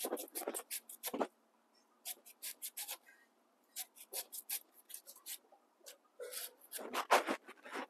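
Banana blossom being shredded with a two-bladed hand shredding knife: runs of quick, short strokes, several a second, broken by brief pauses.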